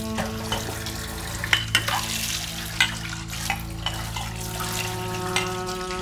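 Hands washing a ceramic mug in soapy water: splashing and scrubbing with a few sharp knocks of the mug, then a scrubbing pad rubbing the wet, detergent-covered surface. A sustained background music drone runs underneath, with higher notes joining about two thirds of the way through.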